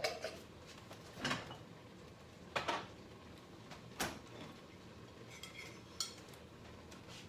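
Kitchen handling noise: a few separate knocks and clinks of dishes and kitchen items, about five spread over several seconds, with quiet between them.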